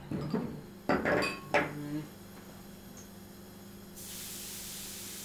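Wine glasses and a wine bottle set down on a wooden dining table: a few short glassy clinks and knocks in the first two seconds. About four seconds in, a steady hiss starts abruptly as a microwave oven runs.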